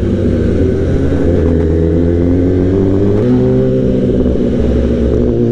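A 2015 Kawasaki ZX-10R's inline-four running loud through an aftermarket exhaust under way. Its note climbs gradually as it accelerates, steps up in pitch about three seconds in, then holds steady.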